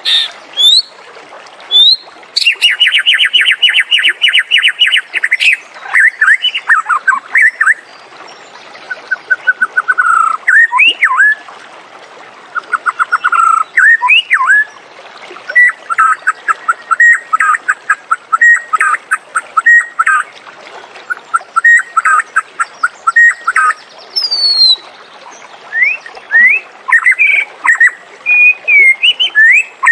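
White-rumped shama singing a varied song of clear gliding whistles, rapid trills and runs of short repeated notes, phrase after phrase with short pauses. A fast trill lasting about three seconds comes near the start.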